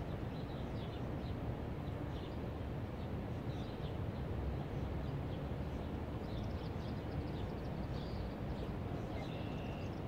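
Small birds chirping in short, scattered calls over a steady low rumble, with a short steady whistle near the end.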